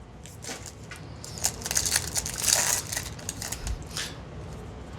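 Foil Yu-Gi-Oh booster pack wrapper crinkling as it is torn open by hand, with irregular rustles that are busiest about two to three seconds in.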